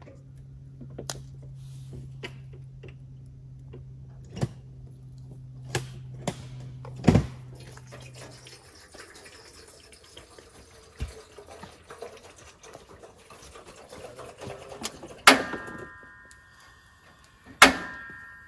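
Water poured from a jug into a pot on a camp stove, the tone of the filling slowly rising. Around it come a few sharp knocks, a low steady hum in the first half, and near the end two loud metallic clanks, each followed by ringing.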